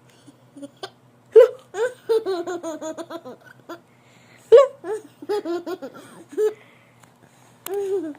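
A young child hiccuping and laughing: two sharp hiccups about three seconds apart, each followed by a run of short, high-pitched giggles.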